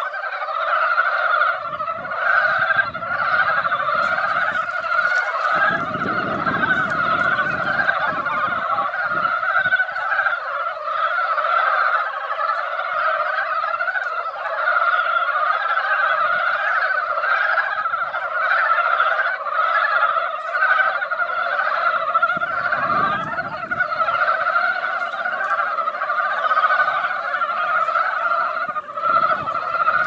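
Breeding chorus of many Korean brown frogs calling together in a pond, a dense, steady clamour of overlapping croaking calls with no break.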